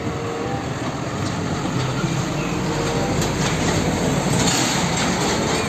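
Diesel engine of a Hino tractor unit running as it tows an empty car-carrier trailer across the road, with steady road noise, growing a little louder as it comes past.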